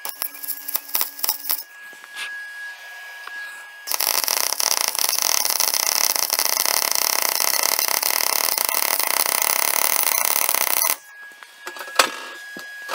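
Inverter MIG welder arc crackling steadily for about seven seconds while a bead is run on thick-walled steel box section, starting about four seconds in and cutting off suddenly. A few sharp clicks come before the arc, and a single metal clank comes near the end.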